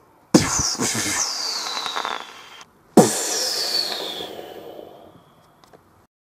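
Two explosion sound effects, about two and a half seconds apart, each a sudden blast with a high falling whistle that dies away over a second or two.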